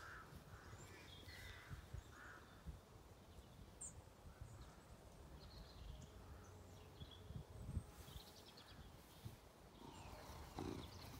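Faint rural outdoor ambience: wind rumbling on the microphone, with distant birds calling, including a run of four short calls in the first two seconds and scattered faint chirps after.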